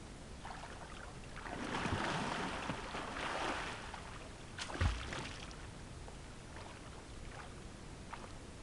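Faint splashing of water as a swimmer wades in and strikes out across a lake. It is strongest between about one and a half and four seconds in, with one sharper splash near five seconds.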